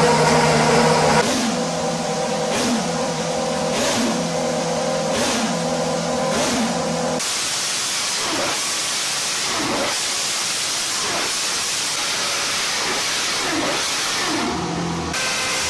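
Red Bull RB9 Formula 1 car's Renault 2.4-litre V8 being run to destruction: held at high revs, then revved up and down about once every second and a bit. About seven seconds in the engine note stops and a loud, steady hiss is left as the race-worn engine gives out.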